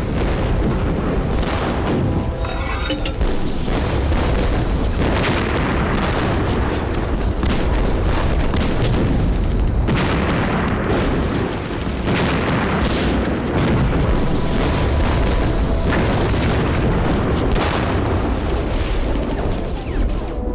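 Artillery bombardment: shell explosions going off one after another over a continuous low rumble.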